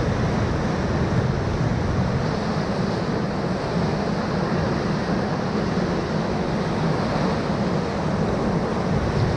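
Steady rush of whitewater pouring around and over a raft surfing a hole in a river rapid, with a heavy low rumble.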